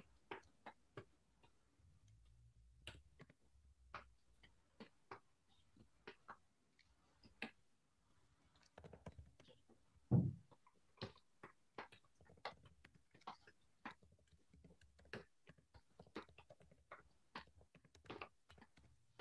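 Computer keyboard typing, faint and irregular key clicks, with one louder dull thump about halfway through.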